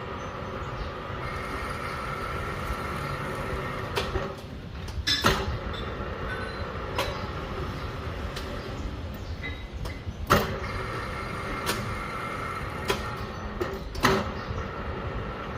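Lathe running steadily with a constant hum and whine, broken by several sharp metallic clicks or knocks, the loudest about five and ten seconds in.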